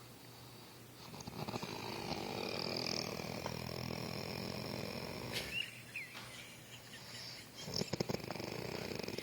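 Snoring in long, rough breaths, with a short rattling snort near the end.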